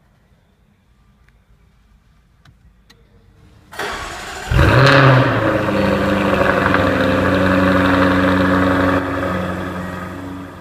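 2015 Jaguar F-Type R Coupe's 5.0-litre supercharged V8 starting, heard from inside the cabin. A short crank about four seconds in, then it catches with a loud flare of revs and settles into a steady fast idle that eases down near the end.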